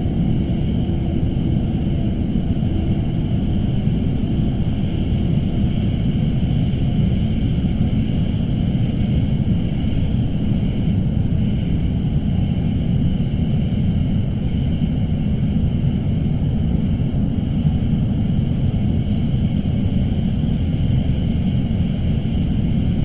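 Suspense ambience sound effect: a dense, steady low rumble with a thin, faint high band held above it, unchanging and without any distinct events.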